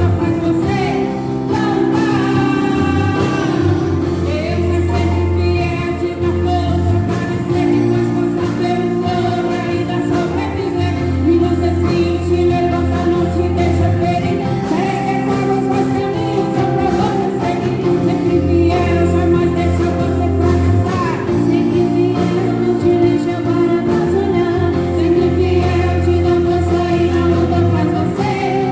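Church worship group singing a gospel praise song together over steady instrumental backing with sustained bass notes and chords.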